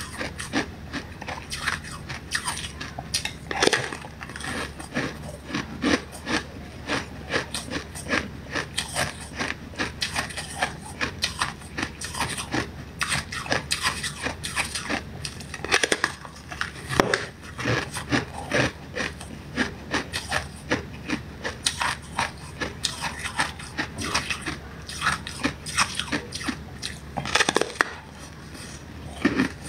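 Frozen ice being bitten and chewed: a dense run of sharp crunches and cracks, with a few louder snaps.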